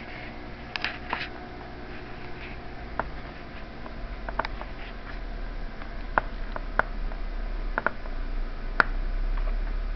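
Scattered light clicks and taps of hands and a small tool working on a laptop's case and screws during disassembly, with a low steady hum underneath.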